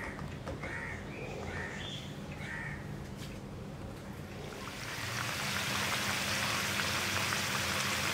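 A crow caws about five times in quick succession. Then, about five seconds in, the crackling sizzle of tapioca sticks deep-frying in hot oil comes in, steady and louder, and holds.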